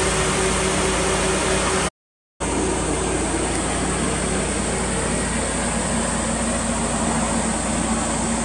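Toyota Altezza RS200's 3S-GE 2.0-litre inline-four idling steadily. The sound drops out completely for about half a second around two seconds in, then the steady idle resumes.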